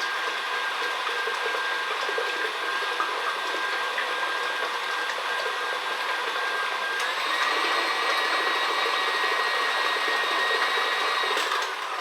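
Electric mixer running steadily, beating eggs, oil and sugar together. Its motor whine steps up in pitch about seven seconds in as the speed is raised, then winds down near the end.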